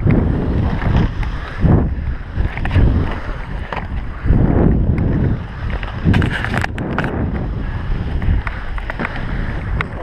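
Wind buffeting the microphone of a body-mounted camera and inline skate wheels rolling on a concrete skatepark bowl, as a rumble that swells and fades with each carve. A brief run of sharp scraping clicks comes about six seconds in.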